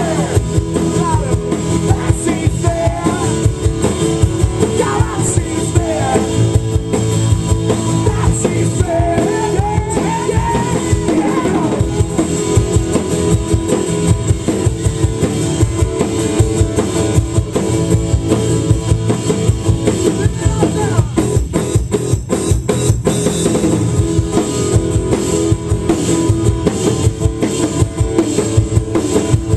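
Live rock band playing loud, steady music on drum kit, strummed acoustic guitar and electric bass.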